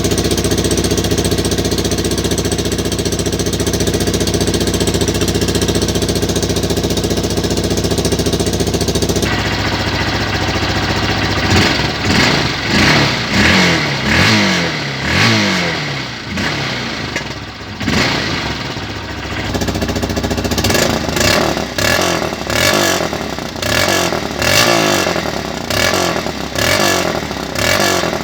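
Honda CBF125's single-cylinder four-stroke engine running loud through a holed exhaust. It runs at a steady speed for about nine seconds, then is revved again and again, the pitch climbing and dropping with each blip of the throttle.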